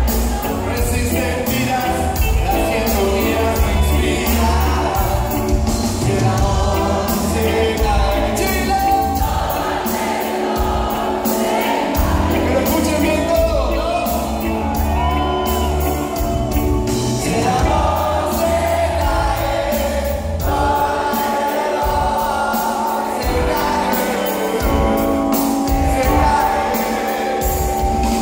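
Live reggae band playing with a lead singer, with heavy bass, heard from among the audience in a large hall.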